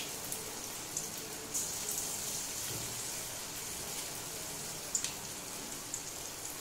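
Semolina-and-curd batter pakoras deep-frying in hot oil in a kadai: a steady sizzle with occasional sharp pops.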